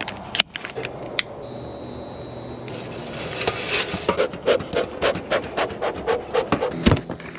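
A few sharp clicks, as of a plastic belt buckle snapping shut, then a bee smoker's bellows pumped in rapid, even puffs, about four a second, pushing smoke out of the pine-straw-filled smoker.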